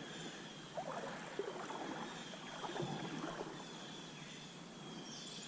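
Water of a trout stream sloshing and splashing, with a handful of irregular splashes in the first few seconds over the steady flow of the stream.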